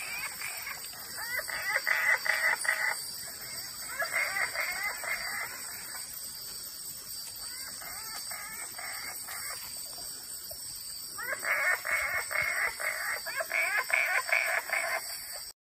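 Australian wood frogs (Papurana daemeli) calling in bouts of rapid, clucking notes, four bouts with the third fainter, over a steady high-pitched drone of night insects.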